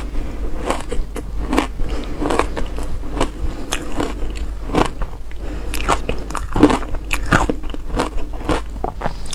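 Shaved ice being bitten and chewed close to the microphone: a run of sharp, powdery crunches, about two a second and irregular. The playback is sped up by a quarter.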